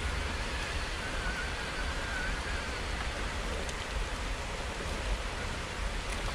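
Steady rushing of flowing water, with a low fluttering rumble throughout and a faint wavering whine about a second in.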